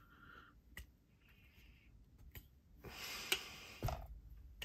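Faint handling noise from a heavy folding knife, a Midgaards Messer Beowulf, being worked in the hand while it is tried for a one-handed flick: a few small clicks, a brief scuff of hand on the handle about three seconds in, and a soft knock just before four seconds.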